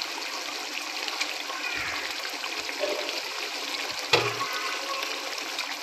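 Thick masala gravy bubbling and sizzling steadily in a pan as steamed egg pieces are set into it, with a dull knock about four seconds in.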